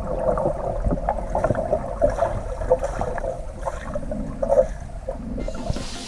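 Water gurgling and sloshing in irregular little bursts.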